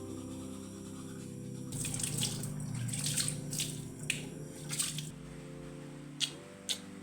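Water splashing and running in a series of short bursts, over steady soft background music; two sharp clicks near the end.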